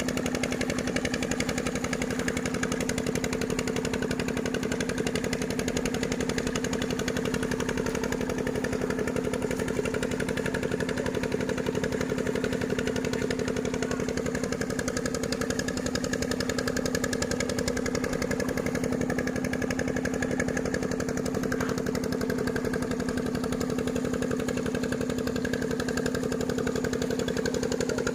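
An engine running at a steady speed: a constant drone with a fast, even pulse.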